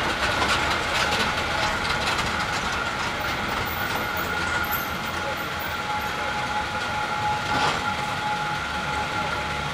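Resort tram driving along paved paths, heard from its back seat: steady rolling noise with a constant two-note whine and occasional clicks and rattles.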